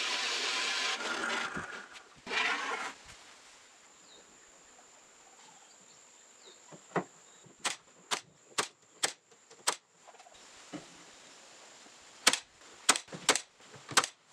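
Drill press motor running as it bores into a board, stopping about two seconds in, followed by a brief burst of noise. Then a Milwaukee cordless brad nailer fires a string of sharp snapping shots, a quick run of about six around the middle and about five more near the end.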